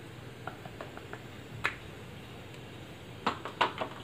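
Light clicks and taps from a red salt shaker and a glass baking dish being handled on the counter: faint ticks early on, one sharp click a little under two seconds in, then a quick run of four or five clicks near the end.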